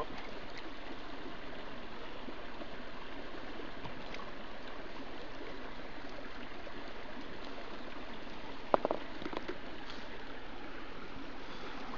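A river running steadily, swollen and just out of flood. A single sharp tap sounds about nine seconds in.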